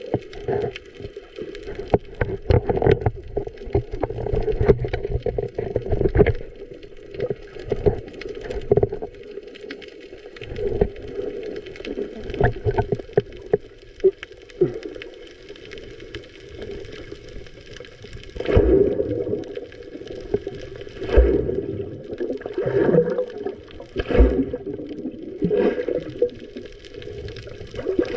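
Muffled water sloshing and bubbling around a camera held at and below the sea surface, with irregular knocks and thumps from handling and swimming strokes. It grows louder and splashier in the second half.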